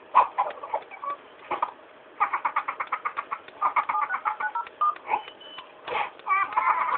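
Birds giving loud laughing calls: bursts of rapid chattering notes, with a fast run of about eight notes a second from about two seconds in and another burst near the end.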